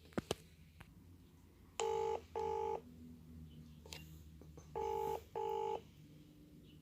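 Phone ringback tone of an outgoing call: two double rings about three seconds apart, each a pair of short steady tones. A couple of faint taps come just before.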